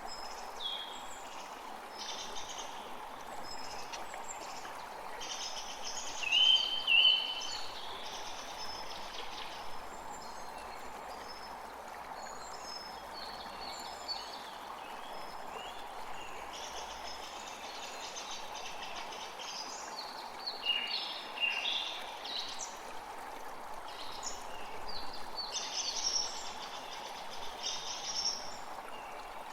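Several songbirds singing and chirping over a steady forest background hiss. The loudest, clearest notes come about six to seven seconds in, with more bursts of song around twenty and twenty-six seconds in.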